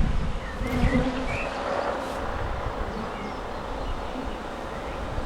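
Honey bees buzzing as a steady hum around an open hive during a frame inspection.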